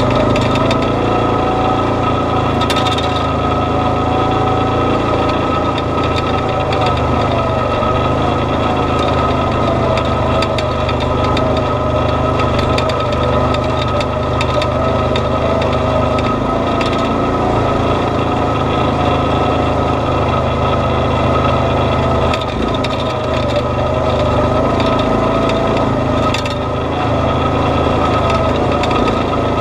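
Off-road vehicle's engine running steadily at low speed while driving a rocky dirt trail, with a few sharp clicks from the ride over rough ground.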